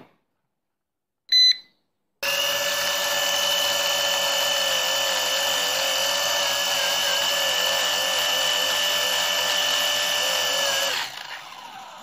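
A short beep, then the SG907 Pro drone's brushless motors spin up and run at a steady whine for about nine seconds before cutting off. The front motors run with their propellers removed, so their shafts can be checked for spinning at the same speed.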